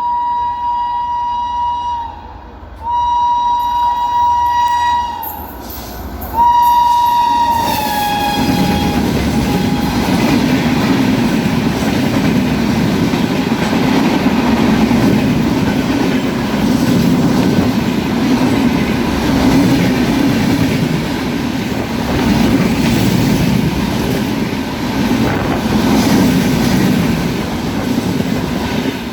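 Swatantrata Senani Express locomotive horn honking in three long blasts, the last one dropping slightly in pitch. Then the train passes at speed with a steady rumble and clatter of wheels on the rails.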